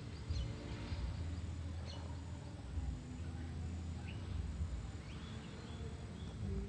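Outdoor ambience of insects with a few short bird calls, over a low rumble.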